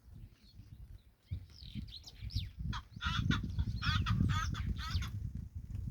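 Bird calls: a few scattered whistled notes, then from about three seconds in, dense bursts of rapid warbling notes, over a low rumble.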